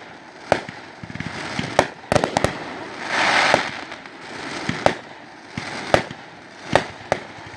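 Fireworks popping in an uneven beat, one sharp pop about every second, with a quick cluster of pops just after two seconds and a brief hissing crackle about three seconds in.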